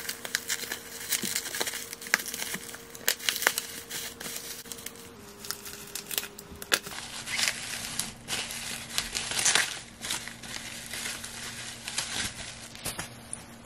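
Bubble wrap crinkling and crackling irregularly as it is pulled and peeled off a wrapped glass item by hand.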